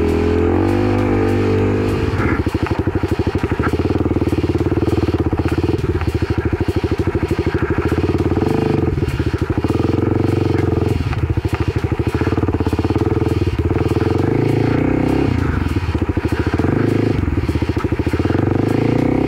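Kawasaki KLX300's single-cylinder four-stroke engine running on a trail ride. Its pitch steps up and down several times as the throttle and gears change.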